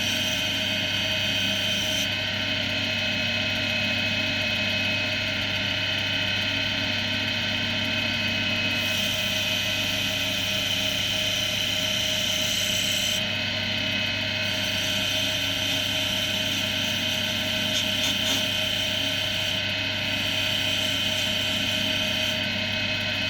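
Axminster AC240WL wood lathe running steadily with an oak coaster blank, a constant motor hum under a high hiss that cuts out and comes back a few times.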